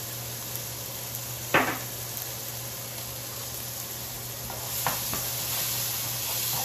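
Bell peppers, onions and cherry tomatoes sizzling steadily in a frying pan, with one sharp knock about a second and a half in. Near the end a wooden spoon clicks against the pan as the vegetables are stirred, and the sizzle grows a little louder.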